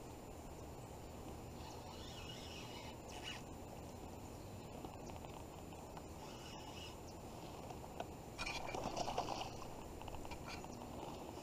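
Quiet outdoor ambience with a steady low hiss and faint bird calls in short patches, and a brief louder rustling noise about eight seconds in.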